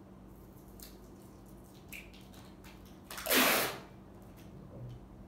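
A few faint clicks, then a single short, loud rush of noise about three seconds in, lasting under a second and tailing off.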